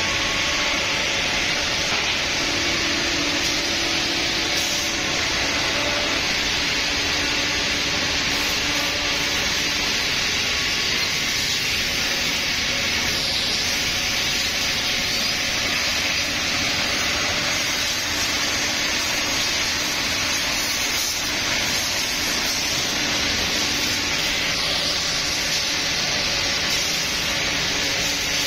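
Holztek nesting CNC router machining board panels: a steady hissing whir of the cutting spindle, with a faint hum underneath.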